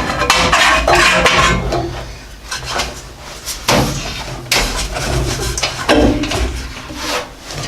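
Irregular metallic clanks and rattles of loose sheet metal being handled, with about half a dozen sharp knocks that ring briefly, over a low steady hum.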